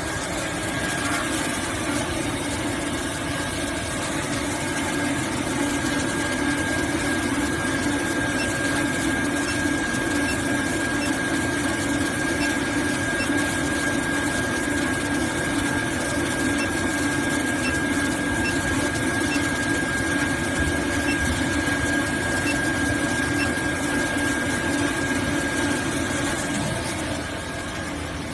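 Small automatic toilet-paper band saw cutting machine running: a steady mechanical hum with a thin high whine that sets in about two seconds in and drops away near the end.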